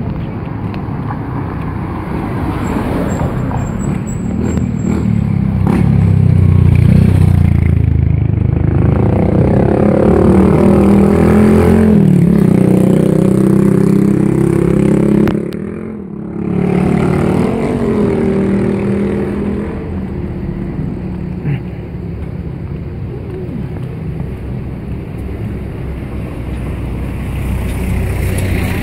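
Motor vehicle engines passing on a road. One engine grows loud about six seconds in and holds for several seconds with slowly shifting pitch, drops off suddenly near the middle, then another passes briefly before the traffic settles into a lower steady rumble.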